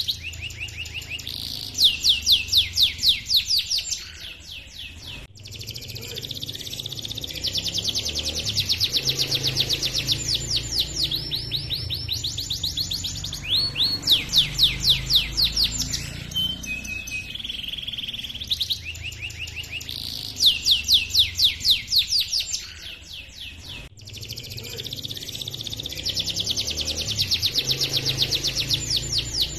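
Domestic canary singing a long, continuous song of rapid rolling trills and chirps, with the louder fast trills coming in bursts of about two seconds. The same song sequence repeats about every 18 seconds, as a looped recording.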